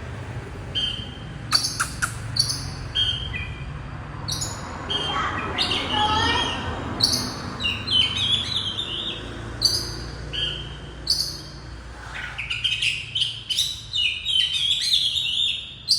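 Many small birds chirping and twittering together in short, high, overlapping chirps, growing denser about twelve seconds in.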